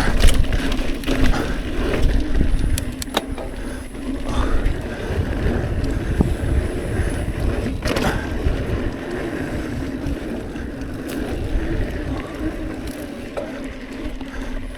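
Hardtail mountain bike riding down a dirt trail: steady rumble of tyres and wind on the microphone, with scattered sharp clacks of chain and frame over bumps, the sharpest about eight seconds in.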